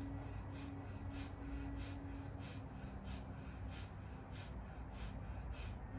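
Rapid, sharp forced exhalations in a fast rhythmic breathing exercise, about three a second, over soft background music with held tones.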